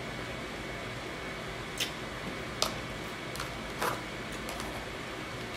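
Eating sounds: a handful of short, sharp clicks and crunches of chewing and handling food, spaced irregularly, over a steady background hiss.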